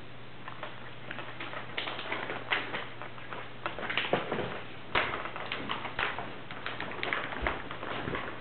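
A cat eating off the floor close by: a run of irregular short clicks and smacks of its chewing, sparse at first and then denser and louder from about two seconds in.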